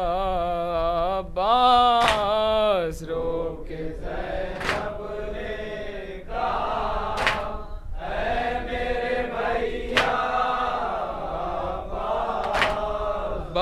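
Men chanting a noha, a Shia mourning dirge in Urdu, unaccompanied. A single lead voice holds a long line for the first few seconds, then a group of men takes up the refrain together. A sharp slap comes about every two and a half seconds: hands striking chests in matam, the beat of the lament.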